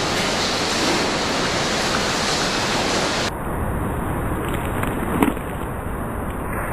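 Steady background hiss with no distinct source. It drops a little in level just past three seconds in, and there is a single faint click about five seconds in.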